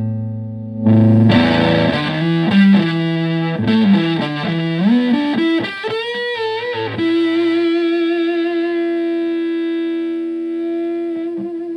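Electric guitar (Stratocaster) through a Tone Bender MK1.5 fuzz pedal with a germanium OC75 transistor, into a Twin Reverb-style amp, playing a fuzzy lead line with string bends. About seven seconds in it settles on one long sustained note with a slight vibrato.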